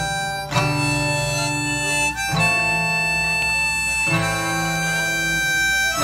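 Live band music: a harmonica plays long held notes over guitars, with the chord changing about every two seconds.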